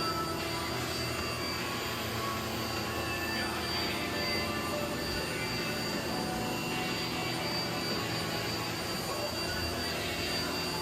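Steady running noise of CNC machinery: a continuous hum and whine at unchanging pitch.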